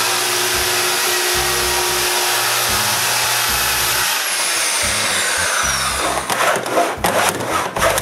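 Plunge-cut track saw ripping a cedar board along its guide rail, a steady loud cutting noise; about four seconds in it is switched off and the motor's whine glides down as the blade winds down. Near the end, strokes of a hand saw in a miter box cutting the wood, over funk background music.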